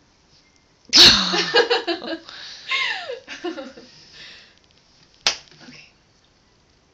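A woman bursts out laughing about a second in, the laughter trailing off in falling giggles over the next few seconds. A single sharp smack sounds a little after five seconds.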